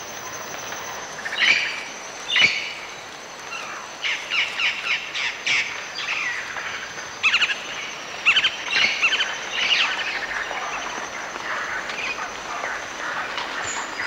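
Parrot calls: short, repeated calls in quick runs, busiest from about four to ten seconds in. A thin, steady high tone runs underneath.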